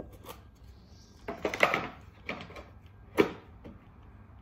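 Air filter and its plastic cover being refitted on a Honda roller mower's engine: a cluster of clicks and knocks about a second and a half in, then a single sharp click about three seconds in.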